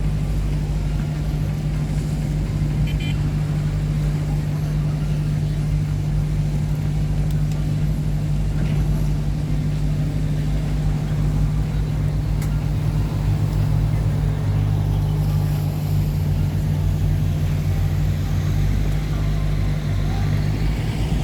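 River passenger boat's engine running steadily at cruising speed, a constant low hum and rumble heard from on board.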